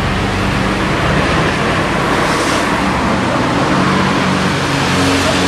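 SYM VF125 underbone's 125 cc single-cylinder four-stroke engine idling steadily, a constant low hum.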